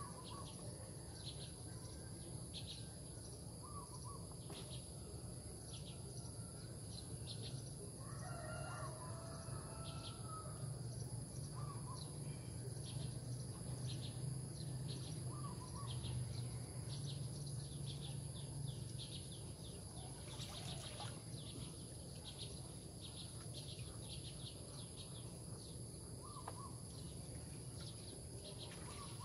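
Rural marsh ambience: insects droning steadily at a high pitch with rapid short chirps, and a few brief bird calls. A rooster crows once about eight seconds in.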